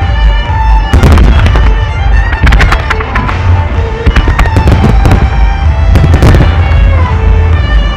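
A fireworks display firing: shells bursting in clusters of sharp cracks and crackles about a second in, around three seconds, and again around five and six seconds, over a constant deep rumble. Music with long held notes plays throughout.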